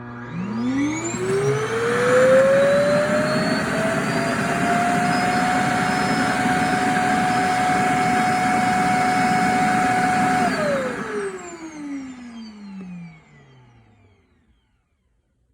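iRobot Roomba self-emptying base's suction motor spinning up with a rising whine, running loud and steady for about ten seconds as it empties the robot's bin, then winding down with a falling whine until it stops.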